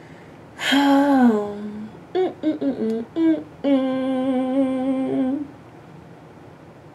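A woman humming a short tune to herself with her lips closed: a falling note, a few quick short notes, then one long held note that stops about five and a half seconds in.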